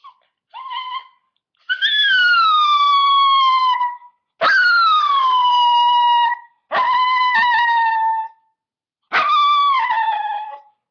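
Dog howling in protest at a water bottle: a short call, then four long howls, each starting high and sliding down in pitch, with short pauses between them.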